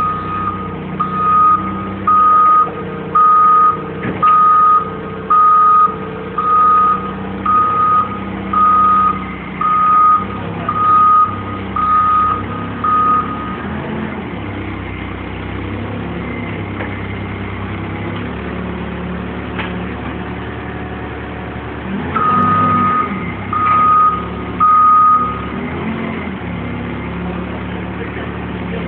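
Hyster propane forklift's backup alarm beeping about once a second over the steady running of its engine. The beeping stops after about thirteen seconds and sounds three more times near the end.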